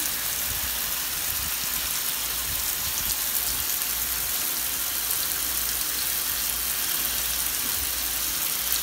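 Water running steadily into a bathtub, an even rushing hiss.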